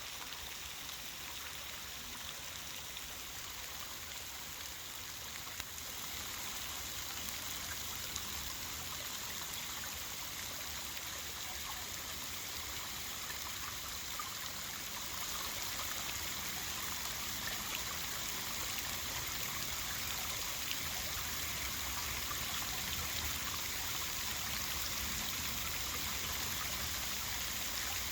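Steady, even hiss of wet snow falling at the start of a storm, growing slightly louder about six seconds in and again about halfway through.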